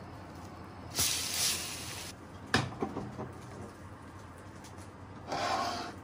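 Kitchen handling noises: a scraping rub about a second in, then a sharp click and a few small knocks, and near the end another scrape as a metal baking tray slides out on the rack of a countertop oven.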